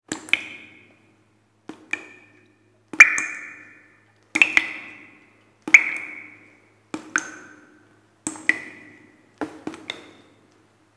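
Metal climbing hardware clinking: sharp metallic strikes, each ringing briefly, about eight of them in a steady rhythm of one every second and a quarter, several doubled.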